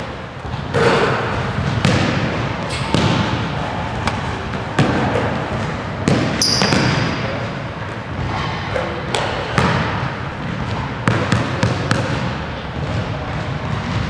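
A basketball bouncing on a hardwood gym floor and hitting the rim during a shooting drill: a series of separate thuds and clangs every second or two, echoing in the gym. A short high squeak comes about six and a half seconds in.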